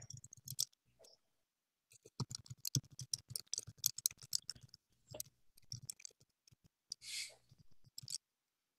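Typing on a computer keyboard: quick, irregular key clicks that pause for about a second early on and then run on steadily.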